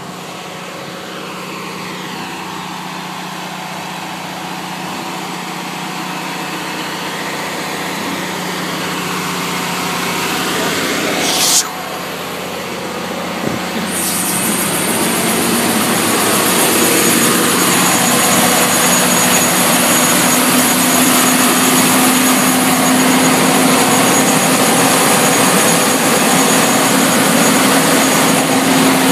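Sewer jetter truck running, its engine slowly getting louder; a short burst of hiss near the middle, then a loud steady high hiss sets in as the high-pressure water pump comes on and the engine runs at a higher speed, driving water down the hose to the root-cutting nozzle.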